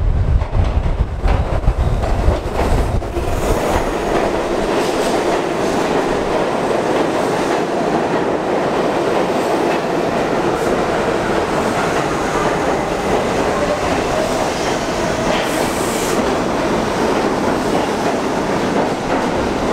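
R68 subway train entering an underground station and running along the platform: a steady noise of steel wheels on rail, with faint clicks over the rail joints. A deep low rumble in the first few seconds fades as the cars come alongside.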